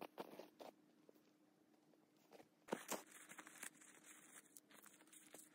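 Faint, irregular crunching and crackling in snow, louder for about a second near the middle, as someone moves about gathering dry tinder such as bark and lichen.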